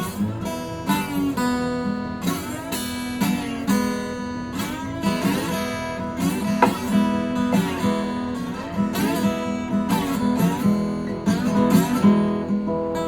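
Johnson dreadnought acoustic guitar in open E tuning, strummed in a repeating pattern, with the open strings ringing on between strokes.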